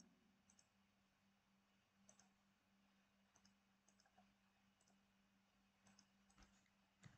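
Near silence: room tone with a few faint, scattered computer mouse clicks and a faint steady low hum.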